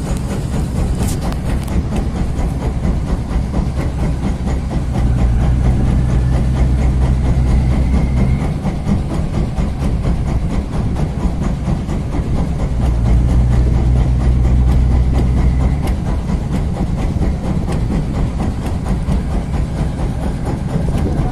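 Boat engine running with a steady low drone. It swells louder twice for a few seconds, about a quarter and two-thirds of the way through.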